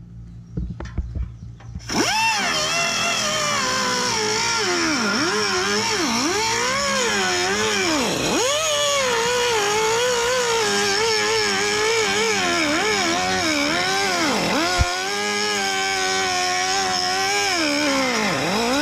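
Pneumatic cutter starting about two seconds in and running with a high whine, its pitch repeatedly sagging and recovering as it bogs against the aluminium. It is barely scratching the metal.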